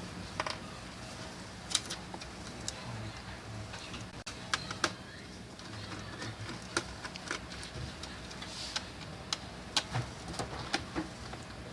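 Scattered light clicks and taps as a screwdriver and small parts are worked inside an open laptop, irregularly spaced, over a faint steady hum.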